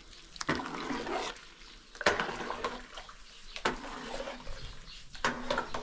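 Water sloshing and splashing in a metal pot as a ladle stirs and scoops rice from the cooking water. Four swishes come at an even pace, about one every second and a half.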